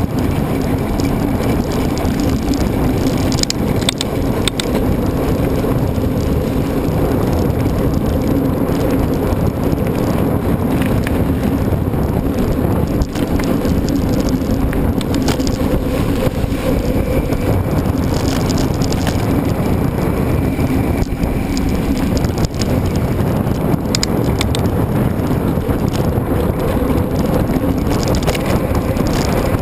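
Mountain bike being ridden at speed: steady rolling noise with a steady hum and wind buffeting the microphone, with a few short clicks about four seconds in and again near twenty-four seconds.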